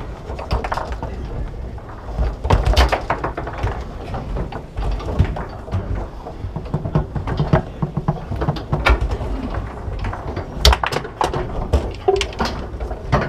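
Foosball table in play: irregular sharp knocks and clacks as the hard ball is struck by the plastic men and the rods are slid and spun, over a low rumble.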